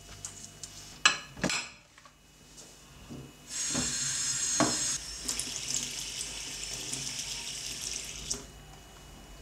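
Kitchen tap running into a stainless steel sink while a plate is rinsed under it, starting about three and a half seconds in and shut off near the end, with a clink of crockery early in the flow. Before the water, two sharp knocks about a second in, the loudest sounds here.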